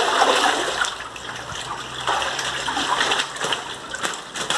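Water splashing and sloshing as a wooden-framed hand net is swept through a small concrete fish tank, loudest in about the first second.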